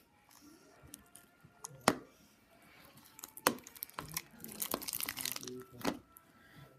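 Borax-and-glue slime being stirred and worked in a bowl: sticky crackling and squelching with sharp clicks, busiest about five seconds in.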